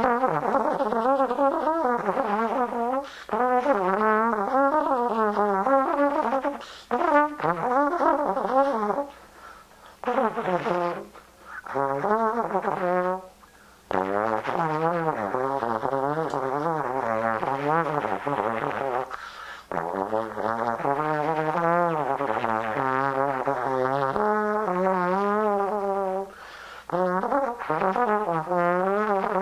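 Solo trombone playing freely improvised phrases, its notes wavering in pitch with a wide, wobbling vibrato, broken every few seconds by short pauses for breath.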